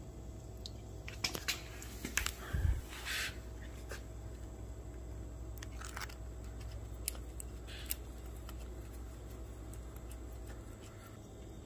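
Scattered light clicks and clinks of metal parts and bolts being handled as a spring-loaded timing-chain tensioner is fitted by hand to an engine block, with a cluster of clicks and a dull thump about two to three seconds in, over a steady low hum.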